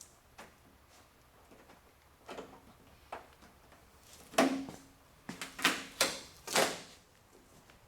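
Handling noises from fitting an aftermarket rear wheel flare: a few light taps, then four louder knocks with a scraping rustle from about four seconds in.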